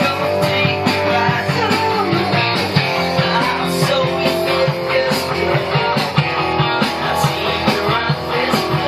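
Rock music with guitar, with a regular drum beat.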